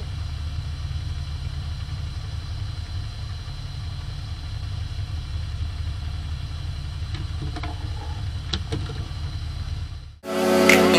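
Fishing boat's engine running steadily with a low hum, with a few light knocks. About ten seconds in, it cuts off abruptly and loud intro music starts.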